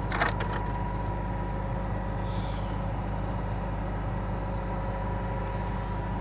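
Combine engine idling steadily, with a brief metallic rattle just after the start.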